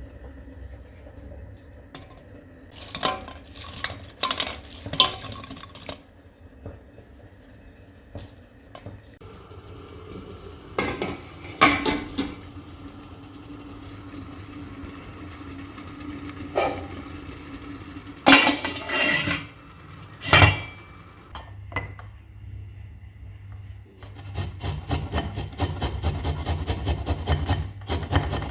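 Kitchen utensils and dishes clinking and knocking now and then, over a low steady hum. Near the end, a fast, even scraping starts.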